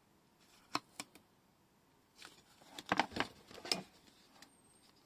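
Double-sided tape and paper being handled: two sharp clicks early on, then a short crackling, rustling flurry a little under three seconds in.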